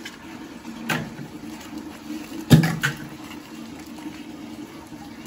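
Tap water running as raw crab pieces are rinsed by hand, with a few sharp knocks of shell, the loudest about two and a half seconds in.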